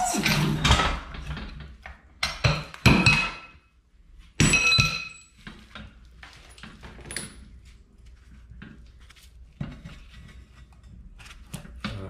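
Steel bearing-press adapters and a Lexus IS300 steering knuckle clanking and clinking as they are handled on a shop press. Three loud clusters of sharp metal knocks come in the first five seconds, one with a ringing note like struck steel, then lighter scattered clinks.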